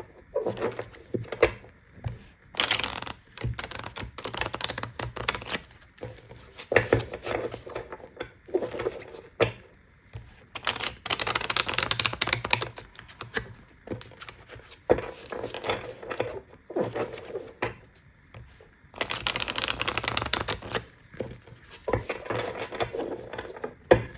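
A deck of cards shuffled by hand: rapid runs of soft papery clicks and riffles, coming in bursts with short pauses between, densest about 11 and 20 seconds in.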